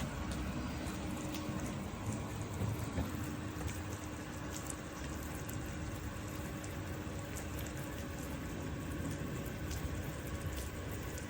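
Swimming pool water running and lapping steadily, with scattered faint ticks and a faint low hum that fades about two-thirds of the way through.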